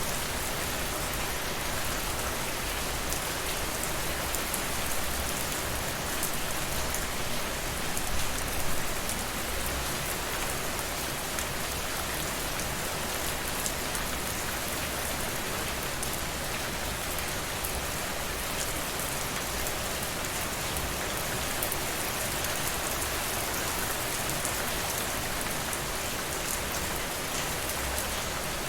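Steady rain falling and pattering on a surface, an even hiss with fine drop ticks, swelling slightly about eight seconds in.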